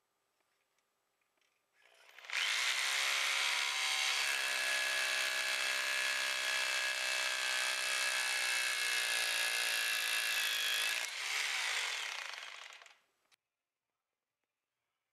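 SDS Plus rotary hammer running against a concrete ceiling. It starts about two seconds in, runs steadily and loudly, eases briefly near the end, and stops a couple of seconds later.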